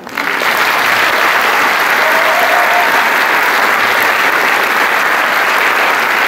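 Theatre audience applauding, breaking out all at once and holding steady.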